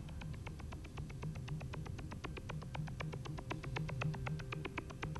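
Low hum with a rapid, irregular run of faint clicks and crackle, the background noise of a worn VHS tape transfer, with no speech or music.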